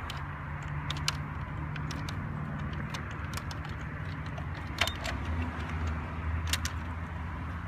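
Light metal chain clinking and sharp plastic clicks as the hand-cranked winch of a Bruder toy mobile crane is worked: a handful of separate clicks, over a low steady hum.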